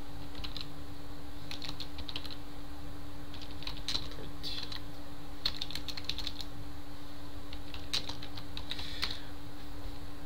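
Computer keyboard typing: short runs of keystrokes with pauses between them, over a steady low hum.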